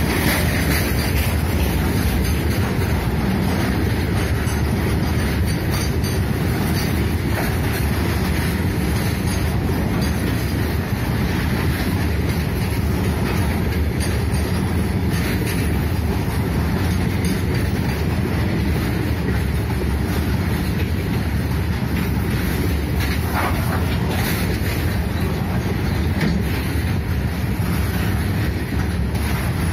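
Loaded coal wagons of a goods train rolling steadily past close by: a continuous rumble of steel wheels on rail, with the clickety-clack of wheels over rail joints and occasional sharper clanks.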